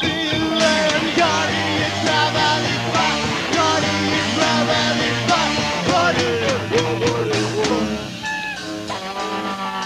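Live rock band playing: a wavering melody line over bass and regular drum hits, easing into held sustained notes about eight seconds in.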